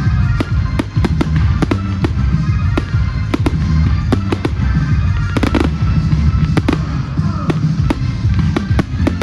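Fireworks display going off: rapid sharp bangs and crackles, several a second, over music.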